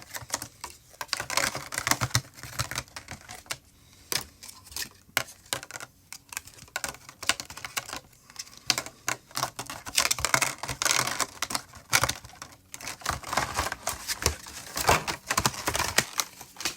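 Trading-card packaging being handled and opened: rapid, irregular crinkles and clicks that come in clusters of a second or two.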